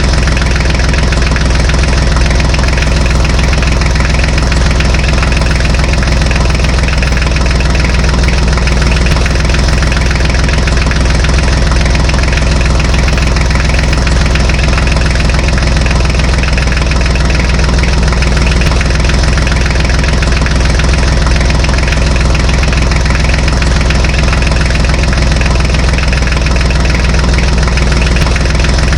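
A tractor engine idling steadily, with a knocking beat and no change in speed.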